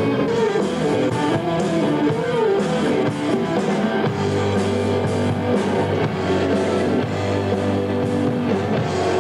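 Rock band music: electric guitars and a drum kit playing a steady beat, with a heavy bass line coming in about four seconds in.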